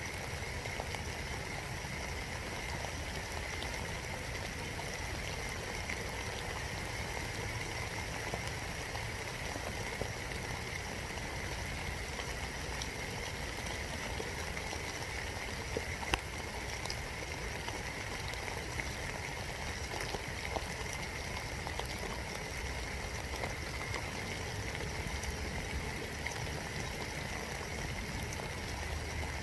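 Steady spring rain heard from inside a birdhouse, a constant hiss with scattered drops ticking close by and one sharper tick about halfway through.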